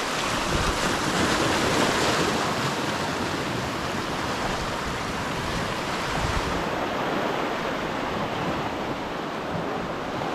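Small sea waves breaking and washing over rocks at the water's edge, surging louder in the first two seconds, then settling into a steadier wash.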